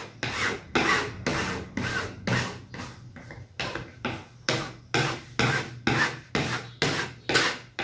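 Spatula scraped over wet primer on a cotton canvas stretched on a wooden board, in short repeated pressing strokes, about two a second, working the primer into the cloth.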